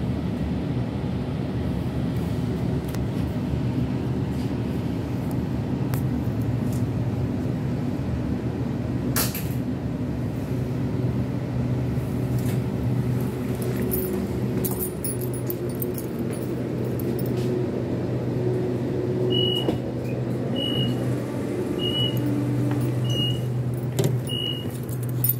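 Sydney suburban electric train running noise heard from inside the carriage, a steady low rumble with a few clicks and knocks, as it comes into a station. Near the end, five short high beeps about a second apart sound.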